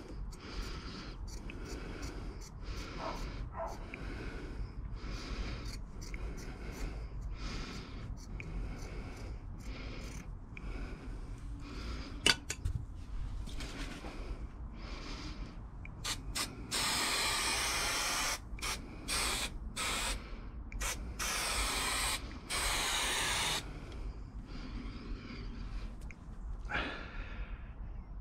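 Scissors snipping through carpet trim in a run of short crisp cuts, with one sharper click midway. Then five loud hissing bursts of a second or two each.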